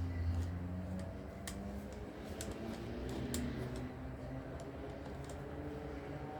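Light, irregular clicks and ticks of small screws and a screwdriver being handled as screws are set into an electric fan's motor housing, over a faint low hum.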